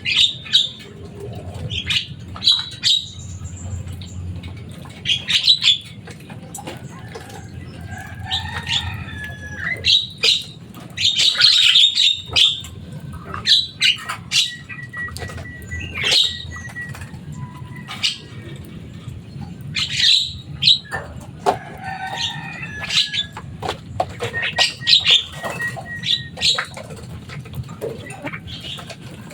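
Javan myna (jalak kebo) calling loudly in repeated harsh, chattering bursts, with a few brief held whistles.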